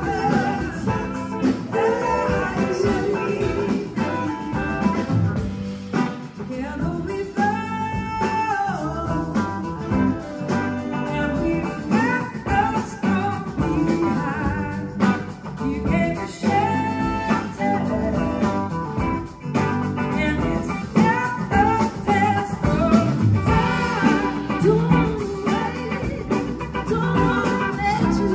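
Live blues-rock band playing: a woman's lead vocal over electric guitars and drums, heard through the venue's PA.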